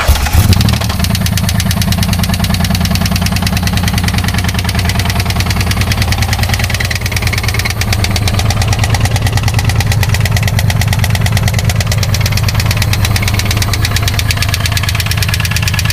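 Pontiac Fiero 2.8-litre V6 catching right at the start, then idling with a loud, rapid, steady knock in time with the engine. This is rod knock from oil starvation: the connecting-rod bearings are spun, two of them gone entirely.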